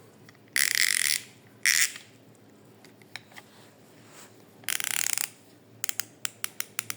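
Parkside 3/8-inch 72-tooth ratchet spun in short bursts, giving a fine, fast, buzzing ratchet whirr three times, then a run of single clicks near the end.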